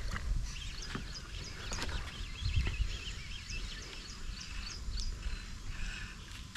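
Small birds chirping repeatedly in short calls, over a low rumble on the microphone.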